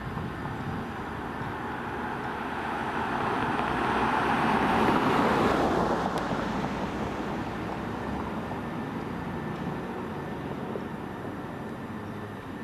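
A road vehicle passing by: tyre and engine noise that grows louder over the first few seconds, peaks about five seconds in, then fades away, over steady background traffic.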